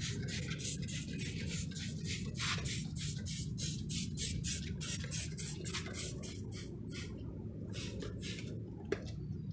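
Hand trigger spray bottle of multipurpose cleaner being pumped in quick squirts, about three or four a second, stopping about seven seconds in with one more squirt near the end. A steady low hum runs underneath.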